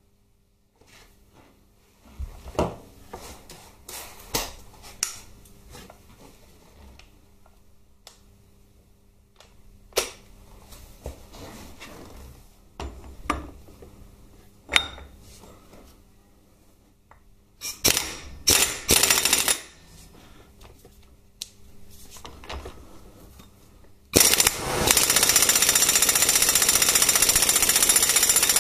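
Scattered clanks and clicks of a socket and tools being fitted onto the transmission mainshaft nut, then, near the end, a corded electric ratchet/impact gun starts suddenly and hammers steadily and loudly on the nut.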